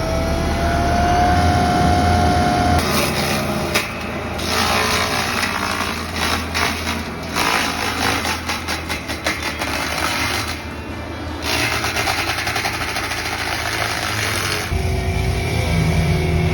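Excavator-mounted Shearex VM-25 SK mulcher head spinning up with a whine that rises over the first few seconds, then running at speed over the excavator's engine hum. Through the middle it turns to a harsh, noisy rush with rapid rattling that eases off briefly, then comes back.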